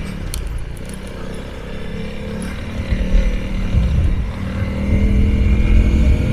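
Honda CRF300L's single-cylinder four-stroke engine running at an even, steady pace while riding a stony gravel track. A heavy low rumble swells in the second half, and a few sharp clicks in the first second come from stones under the tyres.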